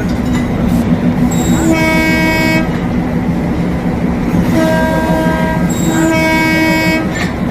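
Darjeeling Himalayan Railway toy train sounding its horn in three blasts of about a second each, over a continuous low rumble.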